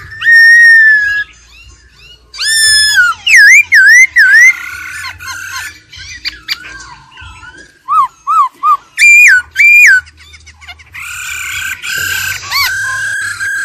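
Black-throated laughingthrush singing: loud, clear whistled phrases with pauses between, some long and level, some quick notes sliding up and down. About two-thirds of the way in it shifts to a steadier, buzzing, rattling strain.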